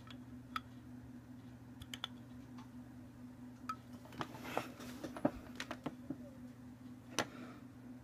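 Scattered light clicks and taps, some singly and some in quick clusters, from a Kershaw Shuffle folding knife being handled at the metal crown cap of a glass beer bottle; the sharpest tap comes a little past the middle and another near the end. A steady low hum runs underneath.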